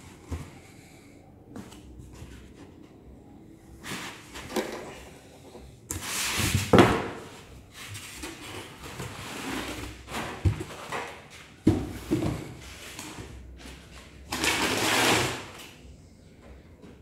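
Unpacking sounds: a fog machine in polystyrene foam end blocks scraping and sliding against a cardboard box as it is lifted out, then the foam blocks pulled off, with rustles and a few knocks. The loudest scrape comes about seven seconds in, and a longer one comes near the end.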